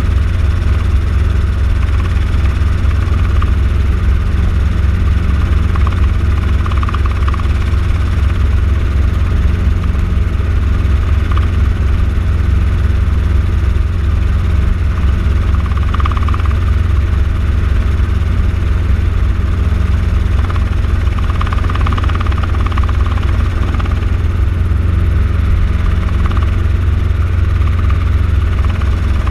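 Light helicopter's engine and rotor running steadily in cruise flight, heard from inside the cabin: a loud, constant low drone.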